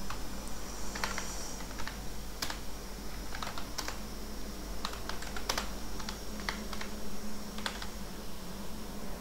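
Typing on a computer keyboard: irregular, scattered keystrokes, over a steady low hum.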